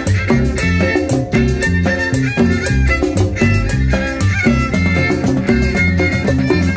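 A live Latin dance band playing. Hand-played conga drums and a drum kit keep a busy, steady beat under a melody line.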